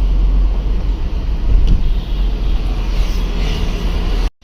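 Steady road and traffic noise with heavy wind rumble on the microphone while on the move through city streets. The sound cuts out completely for a moment near the end.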